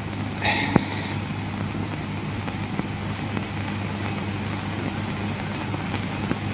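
Steady hiss and low hum of an old film soundtrack, with a brief soft noise and a single sharp click just under a second in.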